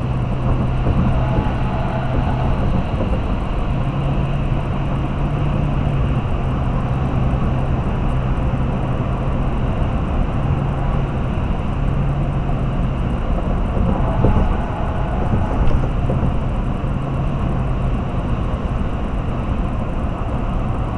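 Vehicle cruising at highway speed: a steady engine drone with a low hum under constant road noise, with a brief bump about fifteen seconds in.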